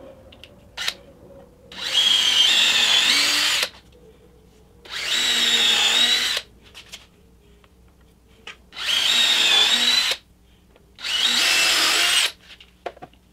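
Cordless drill/driver running into 2x4 wooden planks in four separate runs of one and a half to two seconds each, its motor whine shifting in pitch as the bit bites into the wood.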